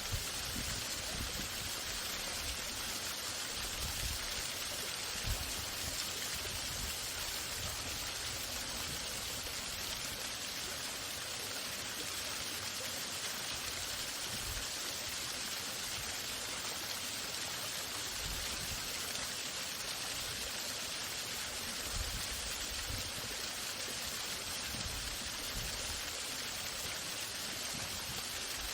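A waterfall running steadily: an even, unbroken rush of falling water, with a few faint low bumps.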